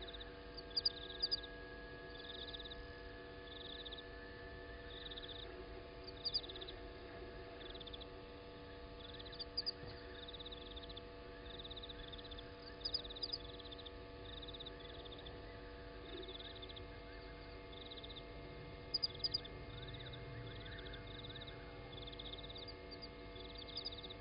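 Night insects chirping: a short high chirp repeats about once a second, with a pair of sharper, louder high clicks every few seconds and a faint steady hum beneath.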